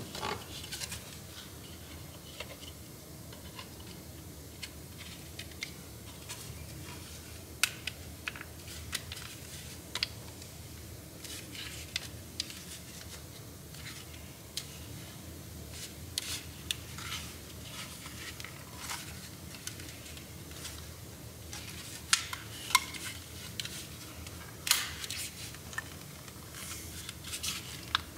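Irregular sharp clicks and taps of small plastic parts being handled and pressed together: a power window switch being fitted into its door-trim bezel, with a low steady hum behind.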